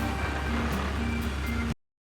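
Background music over a steady low rumble, cutting off abruptly to total silence near the end.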